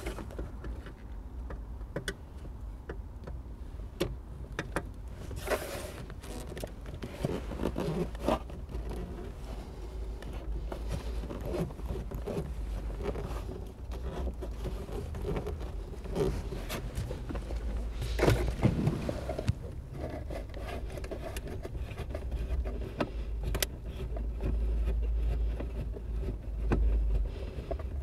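Hand-work noises at a car's dashboard: scattered irregular clicks, knocks and scrapes as a dashboard mounting screw is worked loose, over a low steady rumble.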